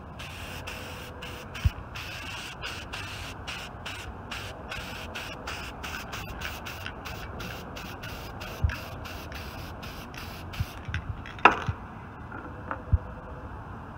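Aerosol copper gasket sealant spraying a heavier second coat onto a cylinder head gasket. It is a hiss broken by many brief gaps that runs for about eleven seconds, then stops. A few hard knocks fall along the way, the sharpest just after the spraying ends.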